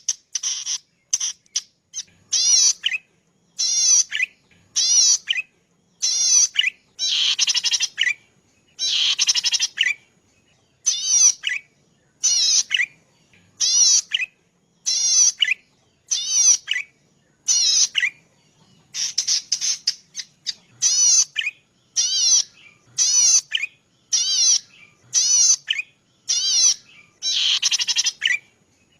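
Cici padi (prenjak padi), a small rice-field warbler, singing a song of short buzzy, rapidly wavering high phrases, repeated about once a second with brief pauses between them.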